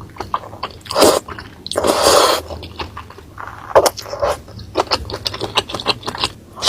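Close-miked eating of spicy seblak with meatballs and cheese: wet chewing, mouth clicks and smacks in an irregular run, with two louder noisy swells about one and two seconds in.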